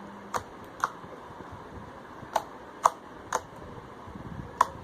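Homemade slime being pressed and folded by hand, giving sharp clicking pops as trapped air bursts out. About six clicks come at uneven gaps of roughly half a second to a second and a half.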